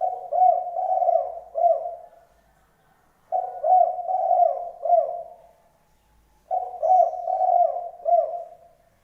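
A dove cooing: three phrases of four or five low, hooked notes, each phrase about two seconds long with a short pause between them.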